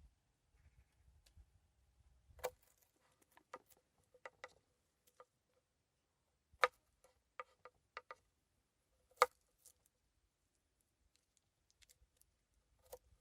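Irregular sharp taps and clicks, as of hard objects being set down or knocked together, with the two loudest about six and a half and nine seconds in.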